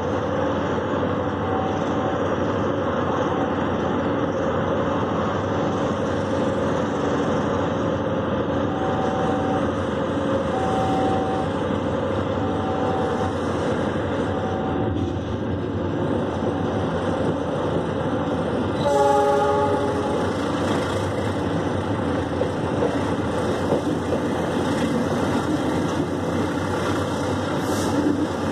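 Diesel-hauled passenger train rolling out of a station, heard from aboard, with steady running and wheel noise. The locomotive's horn sounds once for about a second, about two-thirds of the way in. Earlier, a faint short tone repeats about every two seconds.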